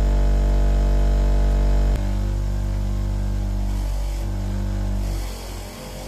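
Electric bench grinder running with a steady motor hum as its wire brush wheel spins; the hum changes abruptly about two seconds in and dips near the end.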